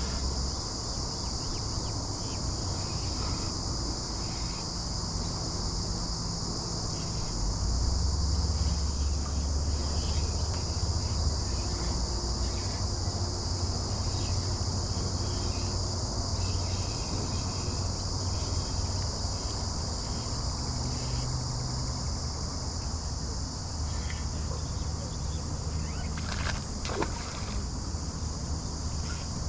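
A steady, high, unbroken drone of cicadas singing, with a low rumble underneath that swells for a few seconds about eight seconds in.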